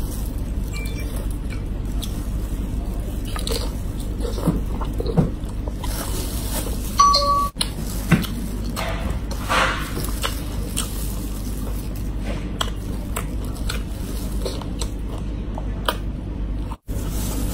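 Eating sounds from spicy shrimp handled with plastic-gloved hands: scattered small crackles and wet clicks of shells and chewing over a steady low hum.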